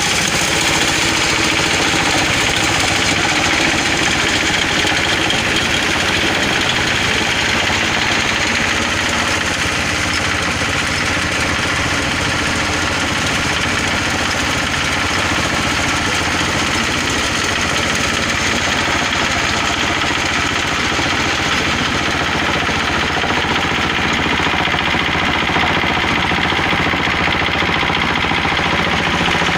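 Stationary diesel engine running steadily at a constant speed, with a dense, even knocking beat.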